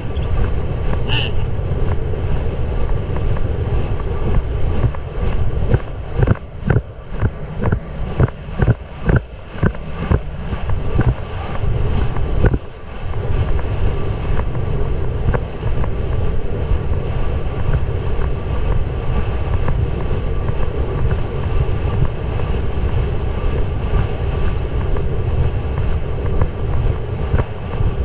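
Wind buffeting a rider-worn GoPro's microphone as a horse gallops on a dirt track, with the horse's hoofbeats coming through as a rhythmic series of thuds about two a second between roughly six and eleven seconds in.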